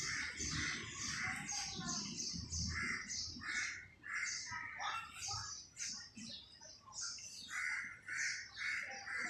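Birds calling: a continuous run of short, repeated calls, several a second.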